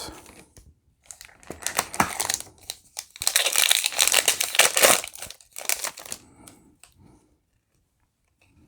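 Foil trading-card pack being torn open and its wrapper crinkled, a burst of crackling rustle that peaks in the middle and dies away in the last couple of seconds.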